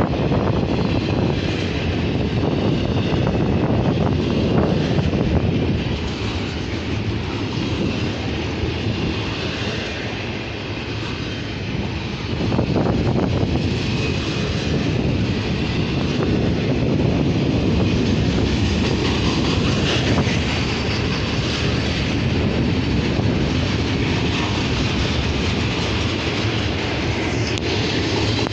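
Norfolk Southern freight train rolling past: a steady, loud rumble of wheels and cars on the rails, easing slightly for a couple of seconds before picking up again.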